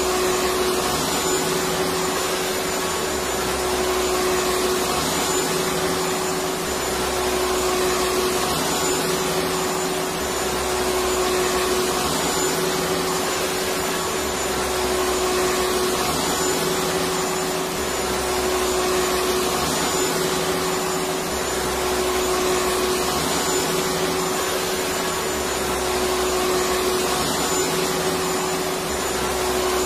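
Electric vacuum cleaner running steadily: a continuous even rushing noise with a steady motor hum, and a faint low rise and fall every few seconds.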